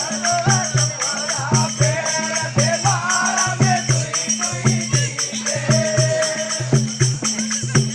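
Rajasthani Gavri folk music: a drum beating a steady repeating rhythm under constant metallic jingling, with a voice singing over it.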